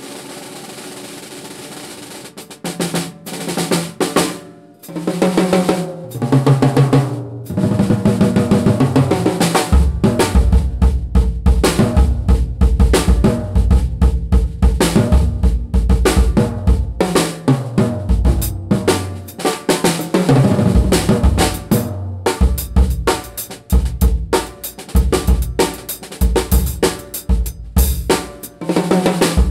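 Mapex VX drum kit (basswood shells with a maple outer ply) with its drums tuned high, played solo. A few separate drum strikes sound first, then from about ten seconds in a full beat with snare and bass drum.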